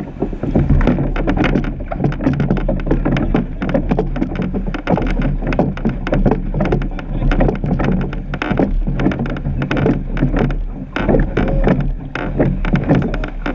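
Surf boat under way with its crew rowing, heard from on board: water rushing and splashing along the hull and oars knocking in the rowlocks, a dense, irregular clatter. It starts up suddenly just after the beginning as the boat gets going.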